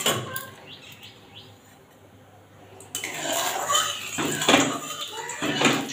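Steel kitchen utensils and a steel kadai clattering and clinking on a gas stove, sparse at first, then a denser run of clinks and rustling from about three seconds in.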